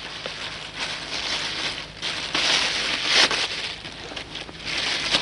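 A clear plastic bag crinkling and rustling as a garment is pulled out of it, loudest a little past the middle.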